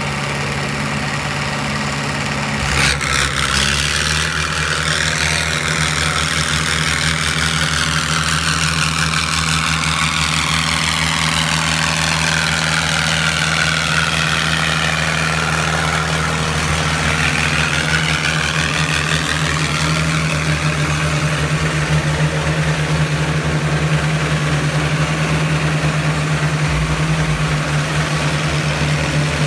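Farmtrac tractor diesel engines running hard in a tractor tug-of-war pull. The engine note steps up and gets louder about three seconds in, then holds steady.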